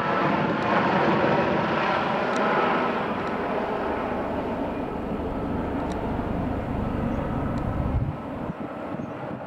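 AgustaWestland AW169 twin-turbine helicopter flying low overhead and moving away: rotor and turbine noise fading gradually, the low rumble dropping off about eight seconds in.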